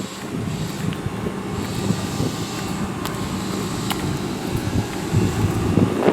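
A vehicle running with a low, steady rumble.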